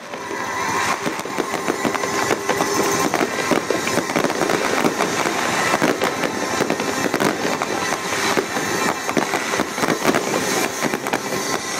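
Aerial fireworks going off in a dense, continuous barrage of shell bursts and rapid crackling pops.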